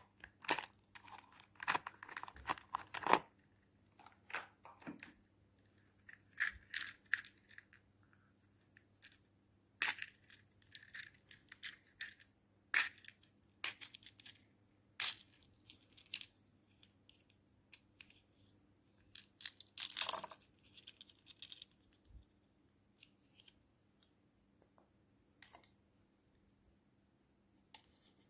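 Small plastic containers of slime add-ins being handled and opened: scattered sharp clicks, snaps and crinkles of plastic, coming in clusters and growing sparse near the end. A faint steady low hum runs underneath.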